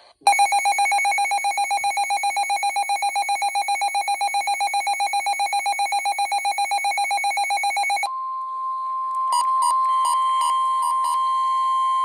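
Midland NOAA weather radio sounding its alert: a loud, rapidly pulsing electronic beep for about eight seconds, then the broadcast's steady warning tone takes over, with a few short key beeps over it as the volume is adjusted. It signals a severe thunderstorm warning being received.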